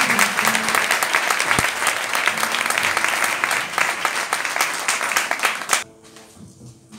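Audience applauding, many hands clapping, stopping suddenly about six seconds in.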